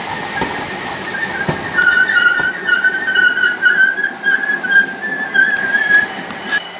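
London Overground electric train pulling out of the platform, its wheels giving a high, wavering squeal over the running noise; the sound cuts off suddenly near the end.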